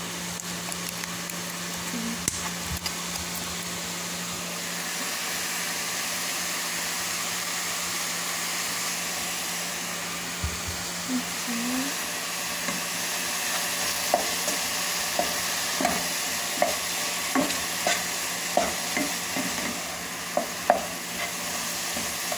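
Ground chicken sizzling in a non-stick frying pan while being stirred with a wooden spatula. In the last third the spatula knocks and scrapes against the pan in a quick series of taps.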